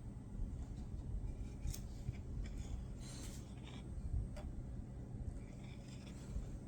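A plastic screen-protector film being handled, with scattered small clicks and a brief rub.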